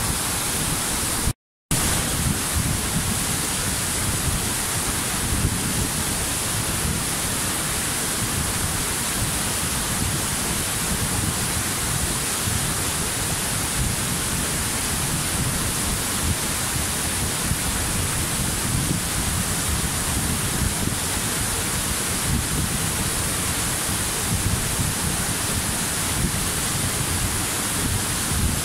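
Waterfall: a steady, even rush of falling water, broken by a brief dropout to silence about a second and a half in.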